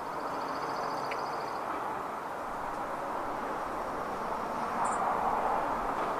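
Steady hum of road traffic, swelling around five seconds in. A bird gives a short, rapid, buzzy trill near the start and a brief high note about five seconds in.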